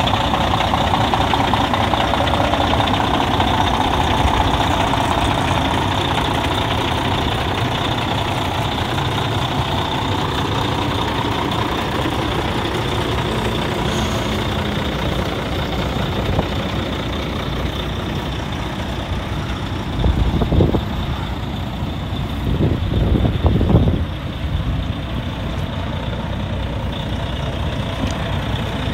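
Heavy diesel truck engine idling steadily. Two gusts of wind buffet the microphone about two-thirds of the way through.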